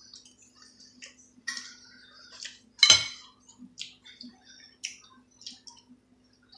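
Forks and spoons clicking and scraping against plates during a meal, in scattered light taps with one sharp, louder clink about three seconds in.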